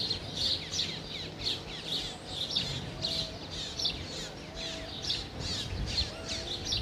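Small birds chirping: quick high chirps about twice a second, with a short lower note every second and a half or so.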